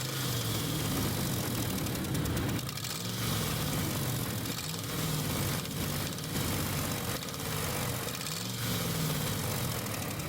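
Dodge Ram's 5.7-litre HEMI V8 running with an exhaust leak at the manifold, its pitch rising and falling several times as the gas is pushed. The loud noise comes from broken exhaust manifold studs and a burnt manifold seal letting exhaust escape.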